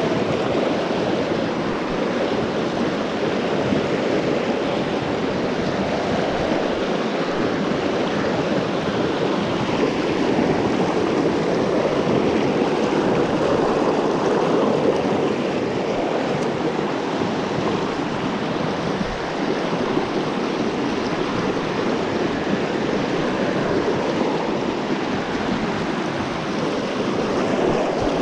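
Steady rushing of flowing water: an even, unbroken noise that holds the same level throughout.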